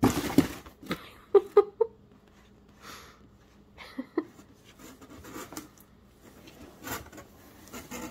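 Cardboard box crashing and rustling as a cat jumps into it, then scraping and crinkling as it moves around inside. There is a loud crash at the start, three short squeaky notes about a second and a half in, and softer scattered rustles and knocks after that.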